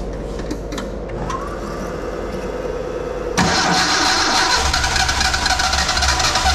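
Datsun 1200's Nissan A12 four-cylinder engine being started: a few seconds of whirring, then it fires suddenly about three and a half seconds in and keeps running. This is a first start on a freshly installed EFI system running a base map.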